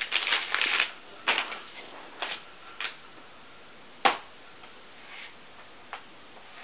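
Plastic bag crinkling as a laptop battery is pulled free, then a handful of sharp plastic clicks and knocks as the battery is handled and fitted into the Sony Vaio laptop, the loudest about four seconds in.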